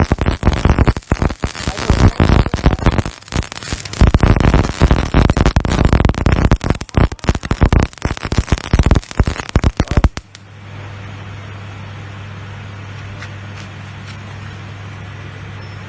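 Electric arc welding, the arc crackling and spitting in rapid irregular pops for about ten seconds. Then the arc stops suddenly and a steady low hum is left, typical of a welding machine's transformer at idle.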